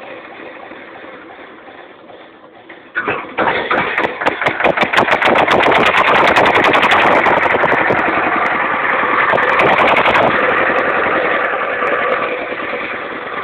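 Lister SR1 single-cylinder diesel engine running very slowly and fading almost to a stop, then about three seconds in it fires again with a sudden run of rapid knocking beats that quicken as it picks back up to a steady run.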